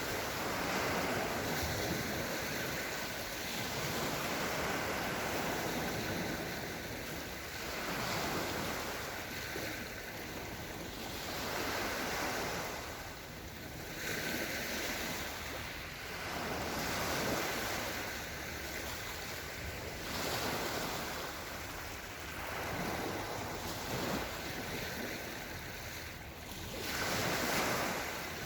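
Small Black Sea waves washing onto the shore and drawing back, swelling and ebbing every two to three seconds.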